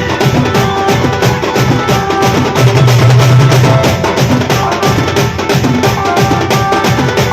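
Village wedding band party playing: fast, dense drumming with held melody notes over it and a strong low note that comes in for a spell of about a second near the middle.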